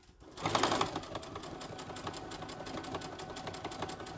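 Electric home sewing machine starting about half a second in and stitching at a steady pace, a fast, even run of needle strokes as it sews a seam in flannel.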